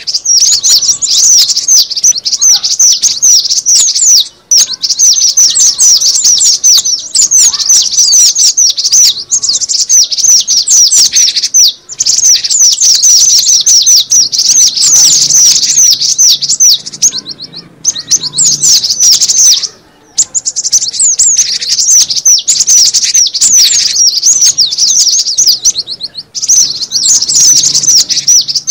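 Cinereous tit (gelatik batu) calling in long, fast strings of high chirps with a few short breaks, a busy chattering used as a bird-trapping lure call.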